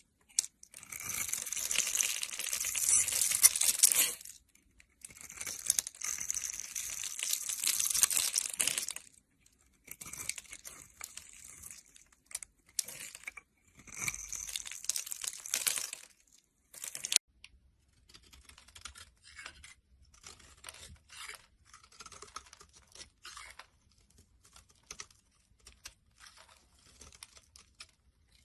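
Bar of soap being cut with a blade: four long scraping strokes of a few seconds each in the first half, then a run of short, quieter, crisp cuts.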